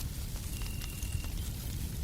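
Fireplace crackling with a few scattered pops over a steady low rumble and hiss of white noise, and a cricket giving one high, even trill of under a second about half a second in.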